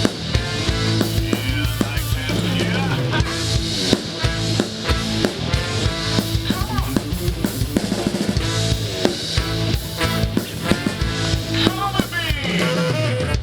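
Rock-style music with a drum kit keeping a steady beat over bass and guitar.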